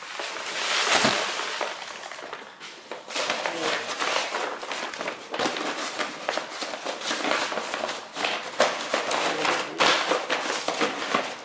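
Small fragments of broken windshield glass crunching and clinking as they are gathered up and dropped into a container. It is a dense run of small crackles and clicks, with a loud rush of noise about a second in.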